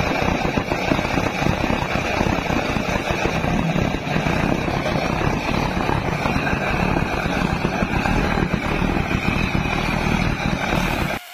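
Homemade waste-oil burner, its flame drawn and pushed by a steam jet through a venturi instead of a blower, burning with a loud, steady rushing noise. The noise cuts off abruptly near the end.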